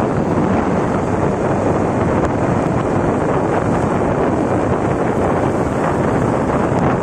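Heavy rain falling in a steady, loud, unbroken roar.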